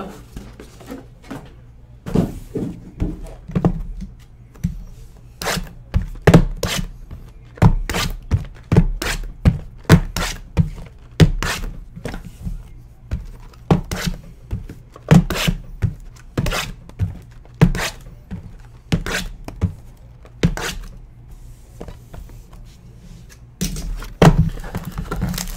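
Sealed trading-card boxes being set down and stacked one after another on a padded tabletop: a long series of dull thunks, often one or two a second, with brief pauses between.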